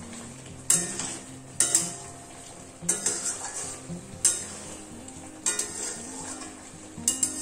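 Flat metal spatula stirring chicken in an aluminium kadai, scraping and clacking sharply against the pan about six times at uneven intervals, over the sizzle of the chicken frying in its masala.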